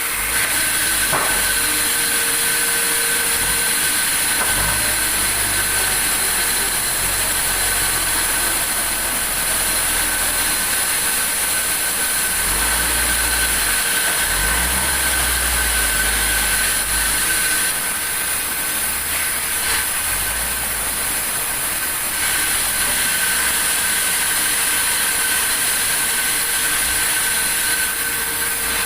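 Sawmill machinery running steadily: a continuous hiss with a fixed high whine over a low rumble that swells and fades, dipping slightly for a few seconds past the middle.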